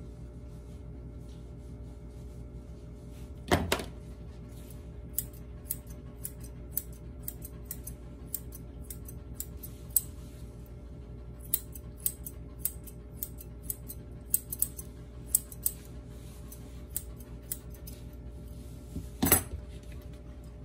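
Grooming scissors snipping a puppy's leg and foot fur: a run of short, irregular snips. There are two louder knocks, a few seconds in and near the end, as tools are put down on the grooming table, over a low steady hum.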